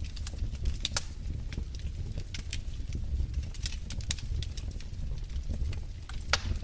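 Wood fire burning in a fireplace: a low steady rumble of flames with many sharp, irregular crackles and pops, the loudest pop near the end.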